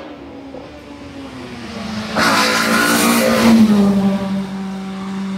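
Hill-climb race car's engine running hard as it passes close by. A loud rush of noise comes as it goes past, about two seconds in, and the engine note falls gradually and then holds lower and steady.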